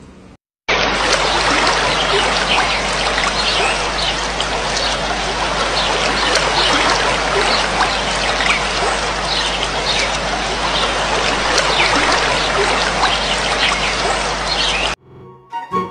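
A dense chorus of many frogs calling at once: a continuous loud wash of short, overlapping calls over a steady low hum. It starts just under a second in and cuts off abruptly about a second before the end.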